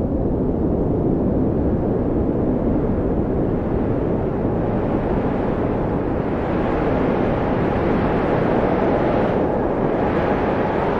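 Blizzard wind: a steady, deep rush of cold wind with a faint whistling tone that wavers in pitch. A stronger, hissier gust swells up about six seconds in.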